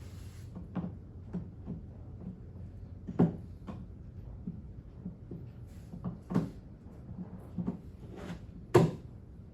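Hard plastic parts of a Harbor Freight large plastic tool cart knocking and clunking irregularly as it is handled and fitted together during assembly, with a louder clunk about three seconds in and the loudest near the end.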